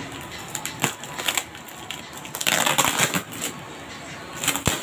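Plastic parcel wrapping crinkling and rustling in irregular bursts as it is handled and cut open with scissors, loudest for about a second midway, with a few sharp clicks.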